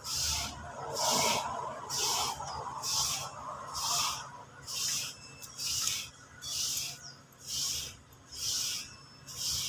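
Cat hissing in short repeated bursts, about one a second, with a lower rasping sound among the first few hisses.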